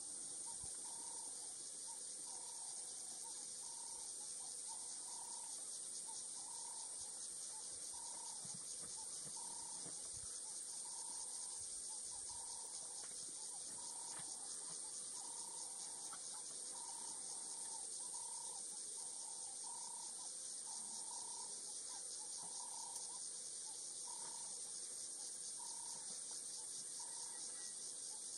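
A steady high-pitched chorus of insects, with a short low call repeating about once a second.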